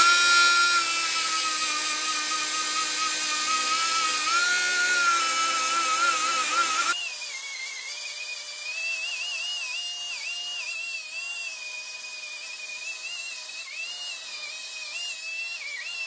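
Die grinder spinning up and grinding on a steel car frame, a steady high whine. About seven seconds in the sound changes abruptly to a quieter, higher whine that wavers in pitch as the grinder bears on the metal.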